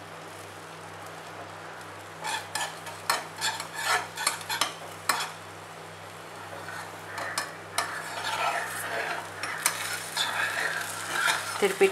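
Steel spoon scraping and clicking against a small karandi pan as egg fries in oil. The spoon stirs and lifts the setting egg so the uncooked egg runs to the side, then folds it over. Sharp clicks cluster between about two and five seconds in, with more scraping over the frying near the end, all above a steady low hum.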